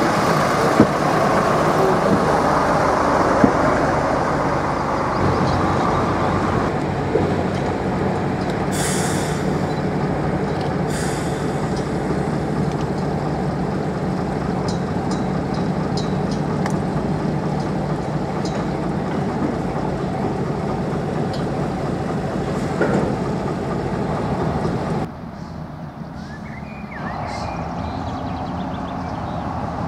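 Small diesel shunting locomotive running steadily as it moves a goods wagon along the track, with a few short squeaks and clicks from the wheels. About 25 seconds in the sound drops abruptly to a quieter, more distant engine.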